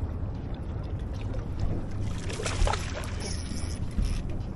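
Water splashing and sloshing beside a boat hull as a landing net is dipped in to scoop a hooked Port Jackson shark, over a steady low rumble. There is a louder splash about halfway through and a knock near the end.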